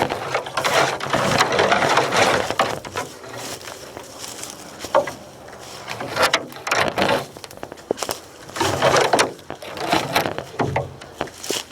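Footsteps crunching through dry leaves and brush in uneven bursts, with a few sharp snaps among them.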